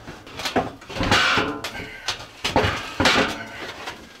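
Metal battery rack being shoved into a plywood closet, its frame knocking and scraping against the wood in a series of clanks.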